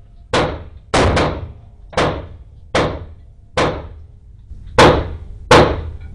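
Pistol shots from a 1911 .45 pistol fired in a string: about eight shots at uneven spacing, including a quick double about a second in, with the two loudest near the end.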